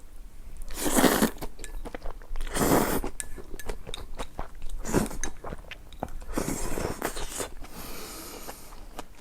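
Close-miked eating: loud crunching bites and chewing, in about five bursts with small mouth clicks between.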